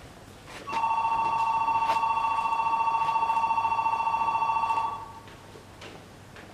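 Station platform departure bell ringing with a rapid, steady electric-bell trill, signalling the train's imminent departure. It starts under a second in and cuts off after about four seconds.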